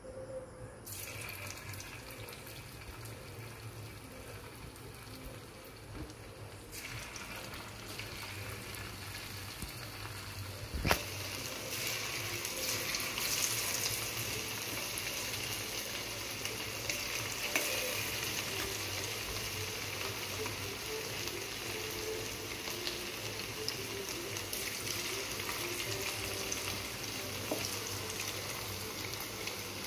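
Hot oil in a wok sizzling around a test drop of batter. After a sharp knock about eleven seconds in, it turns into the louder, steady sizzle and bubbling of battered chicken pakoras deep-frying.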